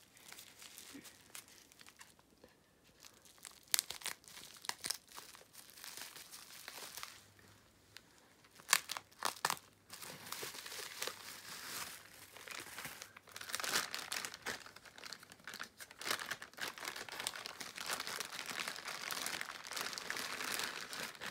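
Bubble wrap and a clear plastic bag crinkling and rustling as they are handled and pulled away. There are a few sharp crackles in the first half, then steadier crinkling from about halfway through.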